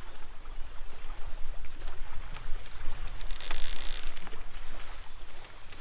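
Wind buffeting the microphone with a steady low rumble, a few light clicks and a brief hiss about three and a half seconds in, as the hard-shell roof-top tent is lifted open on its gas struts.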